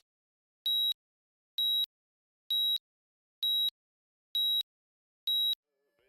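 Short, high-pitched electronic beeps repeating evenly about once a second, six in a row, each one the same steady tone.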